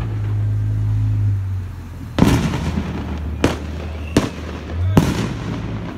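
Four sharp fireworks bangs, the first about two seconds in, then roughly one a second, the first and last ringing out briefly. A low rumble fades before the first bang.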